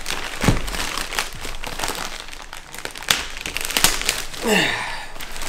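Plastic poly shipping mailer crinkling and rustling as it is pulled and wrestled open by hand, with several sharp crackles; a short vocal sound near the end.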